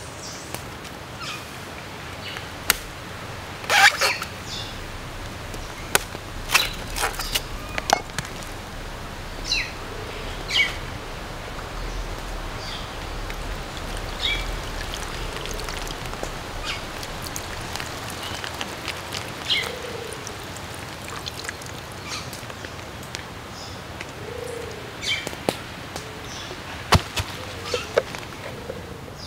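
Birds chirping now and then over a steady outdoor background, with a few sharp clicks scattered through.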